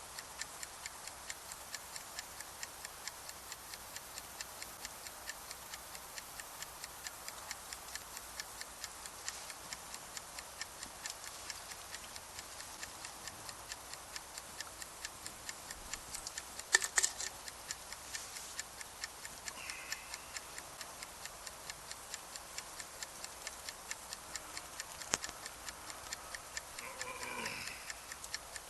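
Steady, evenly spaced mechanical ticking, about three ticks a second, over a faint hiss, with a brief cluster of louder clicks about 17 seconds in.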